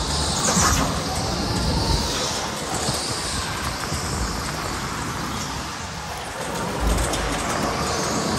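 Electric go-kart driven at speed, heard from the driver's seat: a motor whine that rises and falls with speed over steady noise of tyres and rushing air, with a few low bumps.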